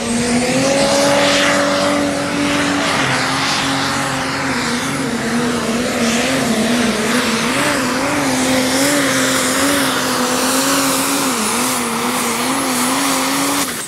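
Pro Stock pulling tractor's turbocharged diesel engine running at full throttle during a pull, its pitch holding high and wavering up and down, then cutting off sharply at the end.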